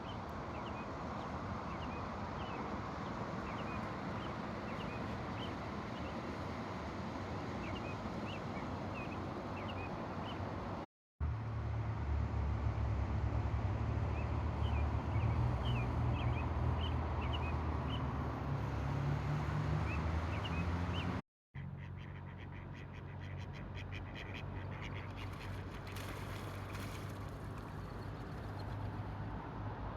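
A chorus of frogs calling: many short, high, rising peeps repeating over a steady hiss of background noise. A low rumble fills the middle part, from about 11 s to 21 s.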